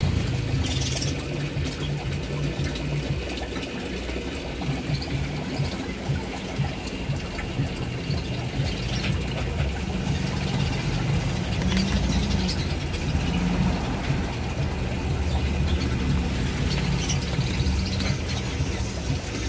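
A steady low mechanical hum from a running motor, wavering a little in pitch, with faint scattered clicks.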